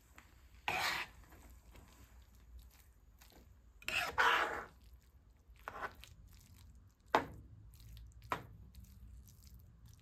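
A person eating ramen noodles close to the microphone: a few separate eating and chewing sounds, the loudest about four seconds in, then two sharp clicks.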